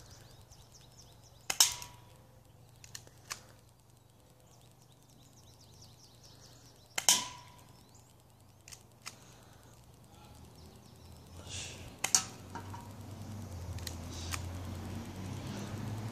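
Airsoft pistol fired three times, each shot a sharp pop about five seconds apart, with a few fainter ticks in between.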